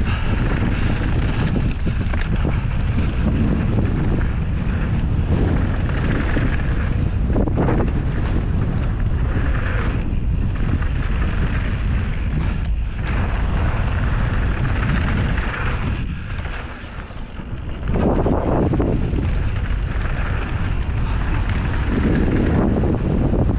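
Wind rushing over the mic of a body- or helmet-mounted camera on a fast downhill mountain-bike run, over the tyres rolling on a dirt trail. The noise eases briefly about sixteen seconds in.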